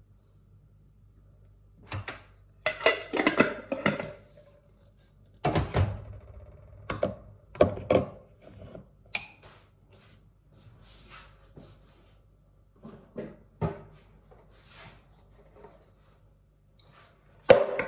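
Kitchen handling noises: a series of knocks, clicks and clatters as containers are picked up, opened and set down, coming in short clusters with pauses between.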